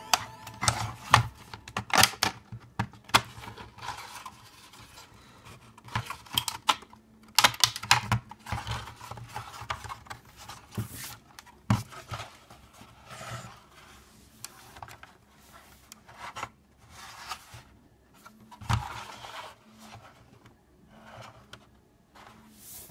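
Hands handling a 3D-printed plastic VR headset shell: irregular clicks, taps and rubbing of plastic parts as they are pressed together and turned over.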